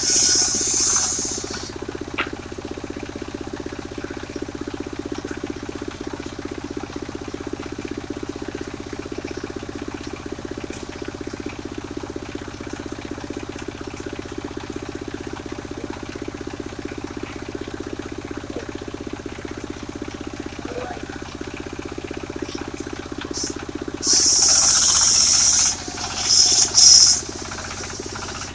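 A mobile circular sawmill runs steadily with a constant drone. Loud bursts of high hiss come about the first second and twice near the end.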